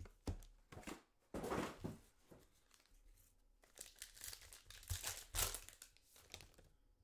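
Foil trading-card pack being handled and torn open: crinkling and tearing foil wrapper in irregular bursts, dying away about a second before the end.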